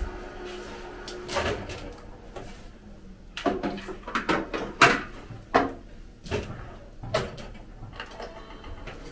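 Oven door opened and a metal baking tray set inside, then the door shut: a string of clicks and metallic knocks over a faint steady hum.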